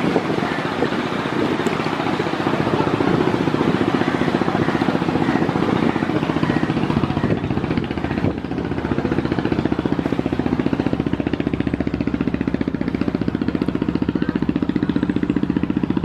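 Passenger river launch's diesel engine running steadily with a fast, even beat.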